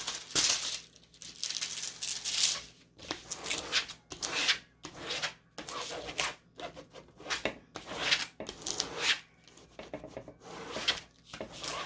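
Sticky plastic packaging being pulled and torn open by hand: a run of irregular rustling, rubbing and tearing strokes.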